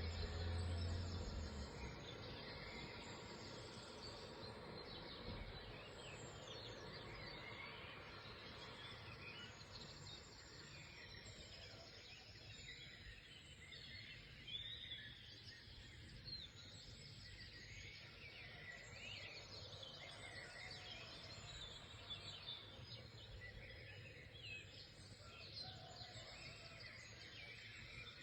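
Many wild birds chirping and singing at once, with short quick notes overlapping through the whole stretch over a faint outdoor hiss. A low hum fades out about two seconds in.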